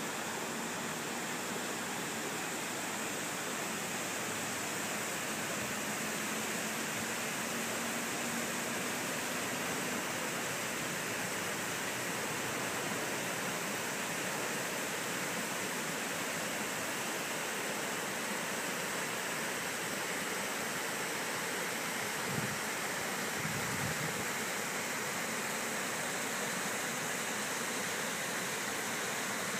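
Water pouring over a low river dam's spillway: a steady, even rushing.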